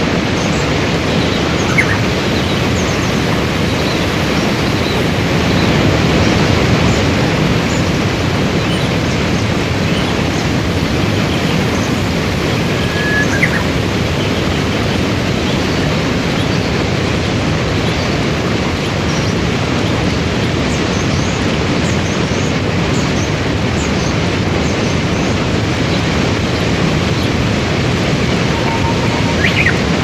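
Waterfall and river rapids rushing steadily. A bird chirps briefly a few times.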